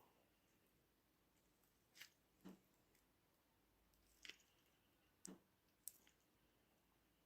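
Near silence in a small room, broken by about five faint, irregular clicks and taps, like small parts being handled.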